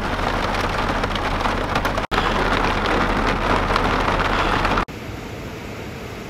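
Heavy rain, in three clips joined by sudden cuts. It is loud for the first five seconds, with a steady low hum under it. After that comes quieter, steady rain.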